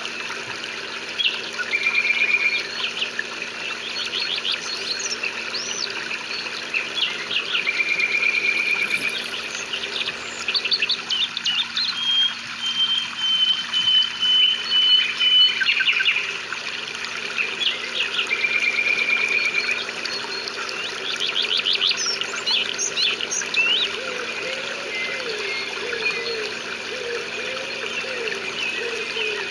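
Several birds chirping and trilling, with a few short held whistles, over a steady hiss of rain.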